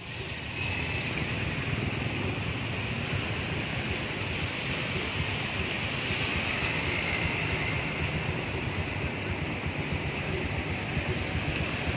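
Steady rushing noise of traffic driving through floodwater, with water splashing under the wheels and engines running underneath.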